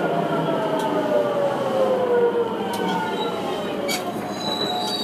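Traction motors of a JR West 207 series commuter train, driven by VVVF inverters (a Mitsubishi transistor unit and a Toshiba GTO unit), whining in several tones that fall in pitch as the train slows on the approach to a station. The whine fades about halfway through, leaving wheel rumble, a few clicks from the steel gangway plates and a faint high squeal near the end.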